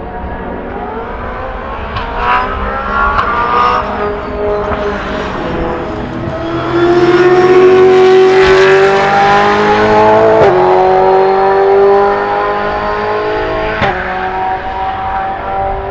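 Brabham BT62's naturally aspirated V8 race engine accelerating hard past the trackside microphone. Its pitch climbs steadily, with quick upshifts about ten and fourteen seconds in, and it is loudest in the middle as the car goes by.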